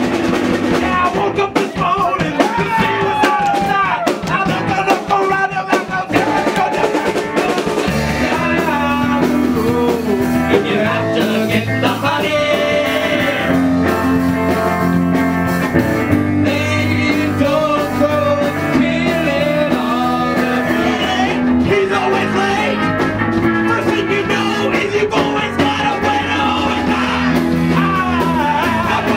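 Live band playing a rock and roll song: a man singing over guitar and drums. The low end grows fuller about eight seconds in.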